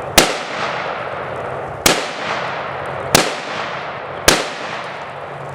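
AK-pattern rifle firing 7.62x39 ball rounds in slow, steady succession: four shots a little over a second apart, each followed by a long fading echo.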